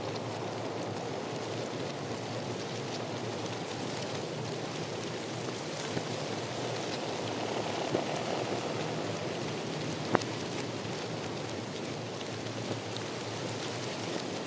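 Steady rain falling, an even hiss with scattered drop ticks and one sharper tick about ten seconds in.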